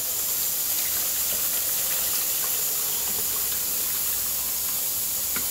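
Blended lemon juice being poured from a blender jug through a plastic mesh strainer into a bowl: a steady pouring sound over a constant hiss, with a few faint ticks.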